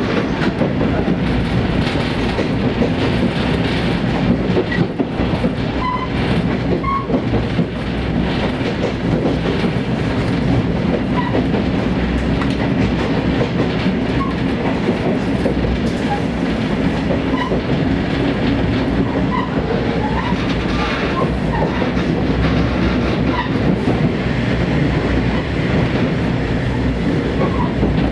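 Train running steadily along the track: the continuous rumble of the wheels on the rails and the railcar's running gear, with faint brief squeaks above it.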